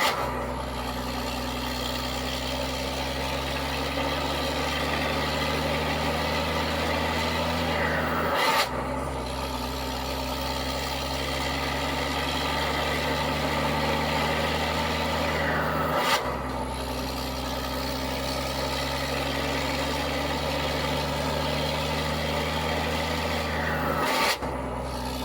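Scania R440 truck's six-cylinder diesel running loud through a straight-through exhaust, pulling steadily under load in each gear. It shifts up three times, about eight seconds apart; at each shift a whistle falls away and the engine dips briefly before pulling again.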